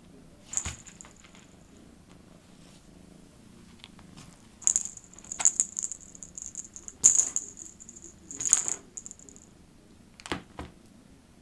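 Domestic cat purring steadily. Over the purr come several bursts of bright metallic jingling with sharp clicks, loudest in the middle stretch.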